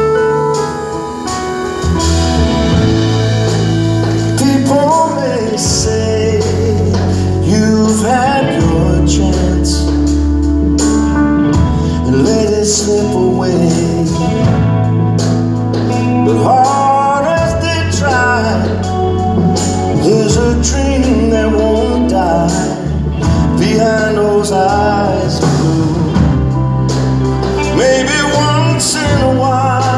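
A live band playing a mid-tempo song: bass guitar, drums, electric guitar and keyboard, with a bass line that changes note every couple of seconds and a wavering lead melody above.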